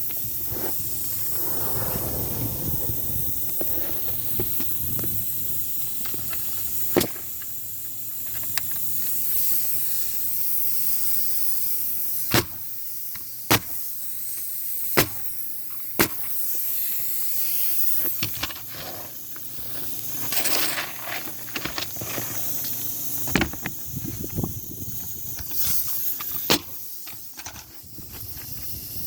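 A steady hiss with several sharp knocks at uneven intervals, some of them several seconds apart.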